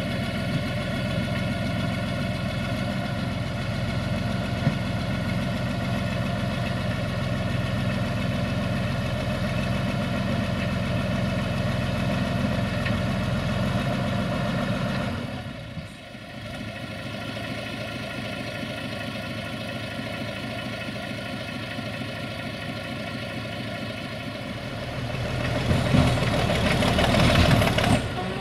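SAME Laser 110 tractor's diesel engine running steadily. It drops to a lower, quieter speed about halfway through, then revs up louder near the end.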